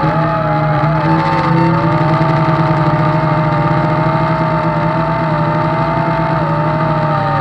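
JJRC H16 quadcopter's small electric motors and propellers running with a steady whine made of several pitches. One pitch wanders up and down as the motors adjust. The owner says one motor has gone bad from the extra weight of added landing gear and a camera.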